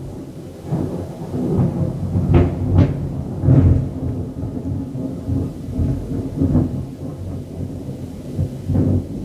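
Thunder rumbling in long, uneven rolls, with louder peaks about two to four seconds in and again near the end.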